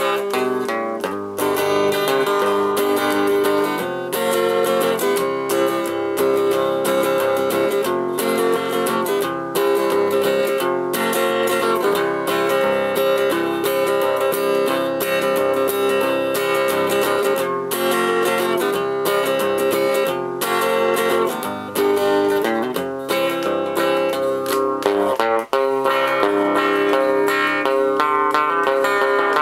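Guitar played through a DIY MTB-1E tube amplifier with 6EB8 tubes: picked notes and strums, running without a break.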